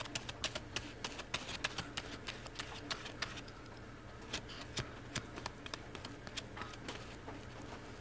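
Small bristle brush spreading contact cement over a sheet of cork: quick, irregular scratchy ticks, dense at first and thinning out after about three and a half seconds.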